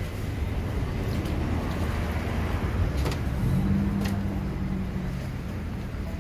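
Street traffic: a steady low rumble of road vehicles, with an engine hum coming in about halfway through and holding for a couple of seconds.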